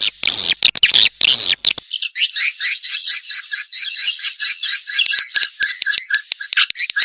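Swiftlets chattering, a rapid run of high twittering chirps repeated about four times a second. Dense crackling clicks run under the chirps in the first two seconds, then stop.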